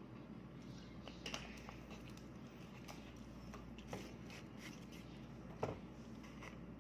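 Faint scattered clicks and crackles of a plastic water bottle being handled, then a louder knock about five and a half seconds in as the bottle is set down on the table.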